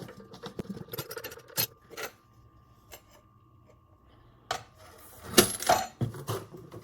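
Fired brass cartridge cases, fresh from a tumbler, clinking and rattling together as they are handled. There are scattered light clinks at first, then a louder burst of rattling about five seconds in.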